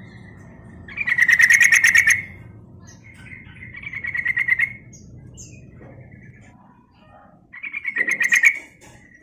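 Yellow-vented bulbul singing: three bursts of rapid, bubbling chattering notes, the second swelling louder as it goes.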